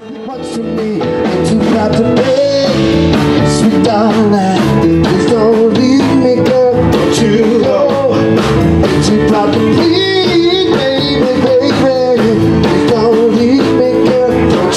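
Blues band playing, with electric guitar and drums; the music fades in over the first second or so.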